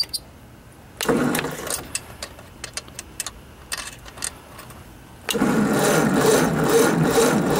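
1956 Ford tractor's starter cranking the engine on a weak 6-volt battery without it catching. There is a short crank about a second in, a few clicks, then a longer crank from about five seconds in. The engine is flooded, with gas pouring from its updraft carburettor: a failed cold start.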